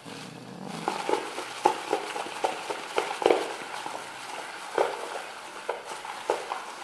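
Irregular light clicks, knocks and crinkles of plastic being handled: a hand in a clear plastic glove working at a plastic bowl of mixed hair dye.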